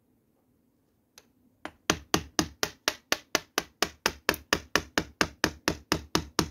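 Wooden mallet striking a chisel's handle, driving the chisel into a block of wood. A single tap is followed by a fast, even run of sharp knocks, about four a second.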